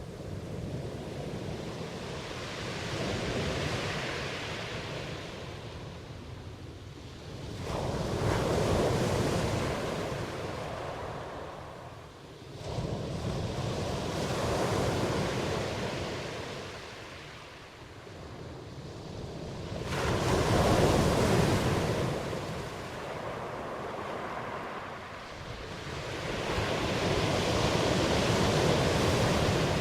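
Ocean surf: waves breaking and washing in, swelling and fading five times, with some waves crashing in suddenly.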